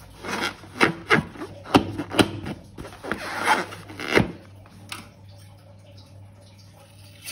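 Hands squeezing and rubbing a filled long latex balloon: a string of sharp rubbing squeaks and taps for about four seconds, then much quieter.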